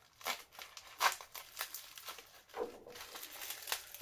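Clear plastic bag crinkling and tearing as it is cut open with a knife and pulled apart by hand, in irregular crackles.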